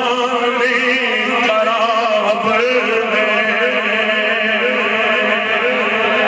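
A man reciting a naat, a sung Urdu devotional poem in praise of the Prophet, in a chanting voice through a microphone, with long held notes that waver and turn.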